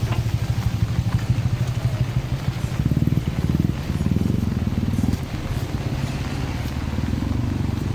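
A motor vehicle's engine running close by with a low, pulsing note. It revs up about three seconds in, holds higher for a couple of seconds, then settles back.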